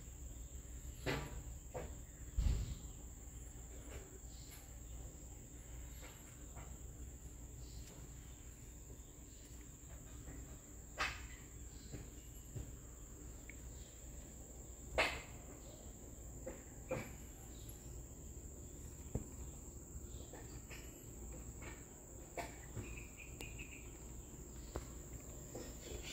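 A steady high-pitched insect drone, with a few scattered soft knocks and taps.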